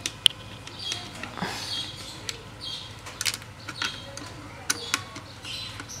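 Screwdriver working screws out of a washing machine's plastic control-panel housing: scattered sharp clicks and short scrapes and creaks of plastic as the panel is handled.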